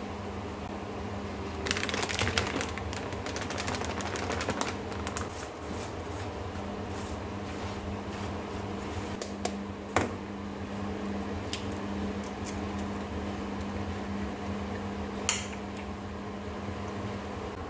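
Kitchen prep handling sounds: a plastic seasoned-flour packet crinkles as it is emptied into a plastic bowl starting about two seconds in, then scattered light clicks and taps as flour is mixed by hand. There is a sharp click about halfway and a short clatter near the end, over a steady low hum.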